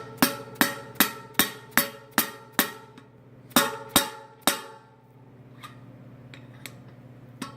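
Dead blow hammer tapping a cartridge bearing into an Easton Velomax bicycle hub over the axle. About eight quick taps that ring like metal come in the first three seconds, then three more after a short pause, then a few faint ticks.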